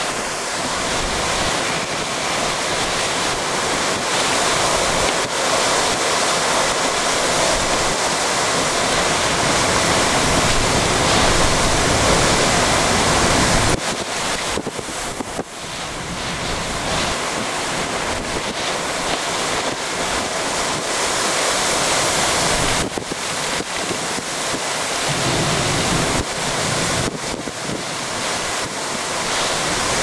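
High straight-line winds and heavy driving rain: a loud, steady rushing noise that dips briefly about 14 seconds in.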